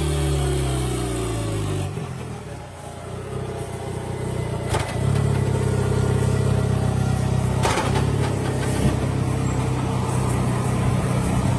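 Honda K20C four-cylinder race engine running, its revs falling away over the first two seconds, then settling into a steady idle from about five seconds in, with two sharp clicks.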